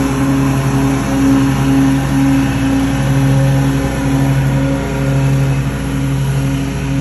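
Lawnmower engine running steadily at one speed, its sound swelling and easing a little as it moves about.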